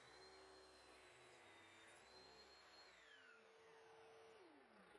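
Near silence, with faint thin steady tones that slide down in pitch near the end.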